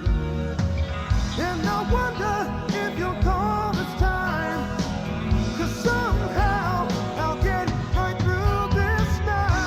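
1980s rock song: drums keeping a steady beat under a full band, with a wavering, bending lead melody line on top.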